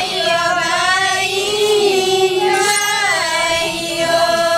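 A group of Korku women singing a dolar geet folk song together in one voice, with long held notes that slide from pitch to pitch. No drums or other instruments stand out.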